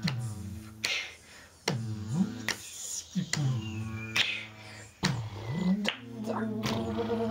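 Finger snaps keeping a slow, even beat, a little more than one a second, over a low drone whose pitch swoops down and back up between the snaps.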